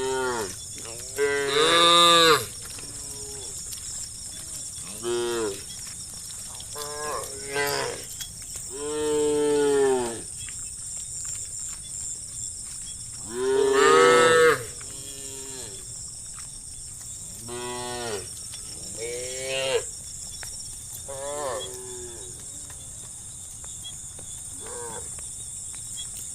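Cattle mooing over and over: about ten calls, some short and several long drawn-out ones that rise and then fall in pitch, the loudest about two seconds in and again about fourteen seconds in. A steady high hiss runs underneath.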